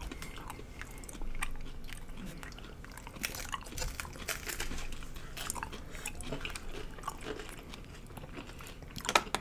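Crunching and chewing of fried hard taco shells, nacho-flavoured among them, close to the microphone: many short, sharp crackles as the shells break between the teeth.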